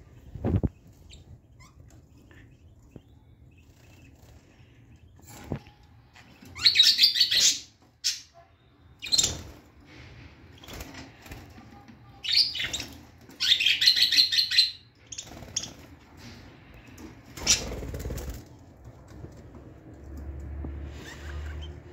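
Caged budgerigars chirping and chattering in loud bursts, about six to seven seconds in and again from about twelve to fifteen seconds in, with scattered short clicks and knocks in between.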